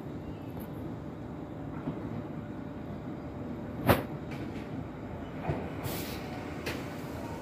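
Commuter electric train heard from inside a carriage: a steady low rumble with several sharp clacks, the loudest about four seconds in.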